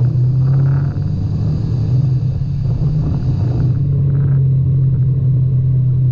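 Side-by-side UTV's engine running at a steady speed, heard from on board: a constant low drone with the rumble of the machine over a dirt trail.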